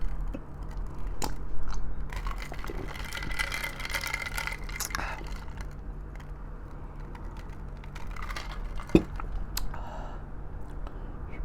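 Close-up mukbang eating sounds: a person chewing braised pork trotters (humba), with scattered sharp clicks and smacks. A steady low hum runs underneath.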